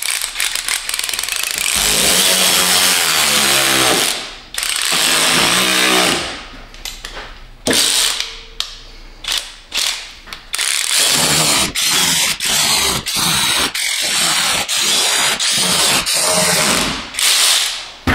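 Cordless power driver running screws into the car's plastic lower engine splash shield. Long runs come first, the motor pitch rising and falling, then many short stop-start bursts in the second half as the screws are snugged down.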